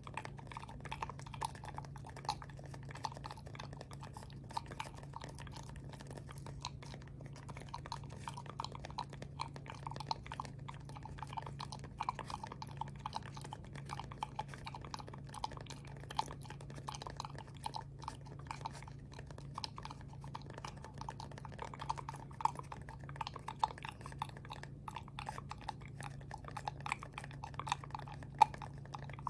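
ASMR mouth sounds made into a cardboard toilet-paper tube: a long run of short wet clicks and smacks, with a steady low hum underneath.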